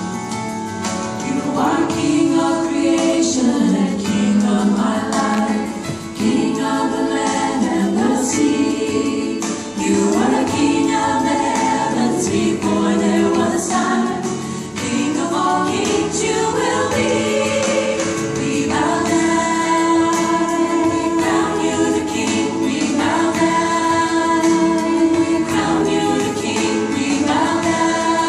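Female vocal group singing a gospel song in harmony, voices amplified through microphones.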